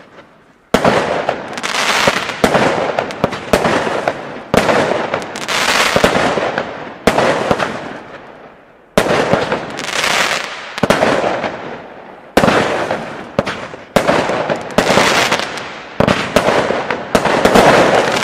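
WECO Spotlight compound firework cake firing shot after shot, about one shot a second, each shot a sharp bang followed by a dense crackle that fades over a second or two. There is a short lull a little before halfway.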